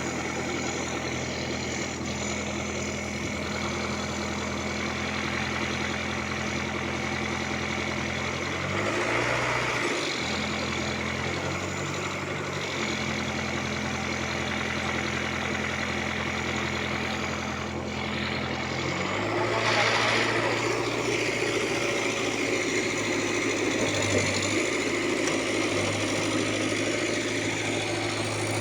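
Diesel engine of a Case 851 backhoe loader running steadily, its speed shifting briefly about nine seconds in and changing to a different, noisier running note at about nineteen seconds in.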